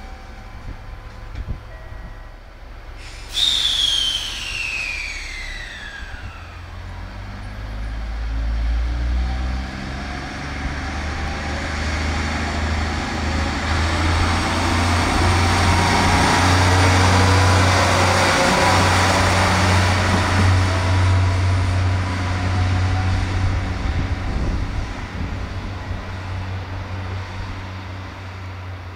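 KiHa 11 diesel railcar running past, its diesel engine drone swelling to a peak midway and fading toward the end, with some rising tones. About three seconds in, a sudden loud burst with a whine that falls steeply in pitch.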